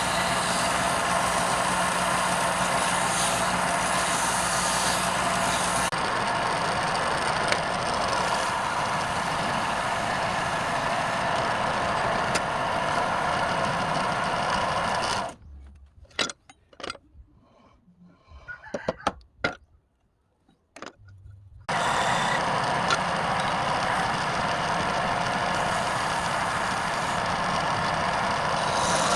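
Wood lathe running steadily with a hissing cutting noise. About 15 seconds in it stops for some six seconds, leaving only a few scattered clicks and knocks, then runs again.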